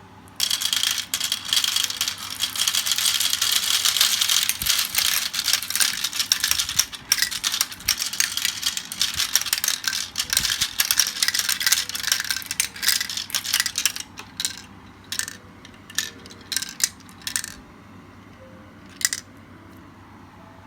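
Many marbles rolling and clattering down a marble run in a dense rattle, which thins after about 14 s into scattered single clicks as the last marbles come through.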